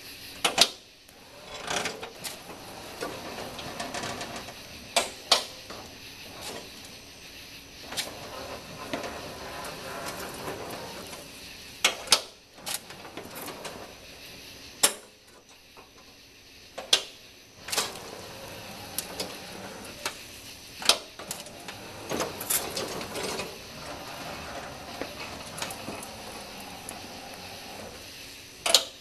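Homemade electric lawn tractor running in spurts with a steady mechanical whir, pushing loose dirt with a front blade, with sharp clicks and knocks at irregular times.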